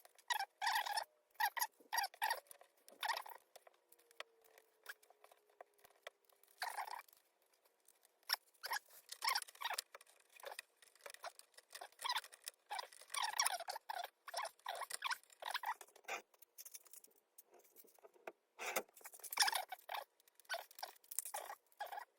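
Irregular runs of small clicks and scratches from hands handling pinball parts, fitting small light bulbs and a light board onto the playfield.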